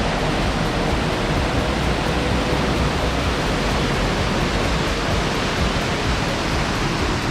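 Steady rush of a mountain stream cascading down rocky steps.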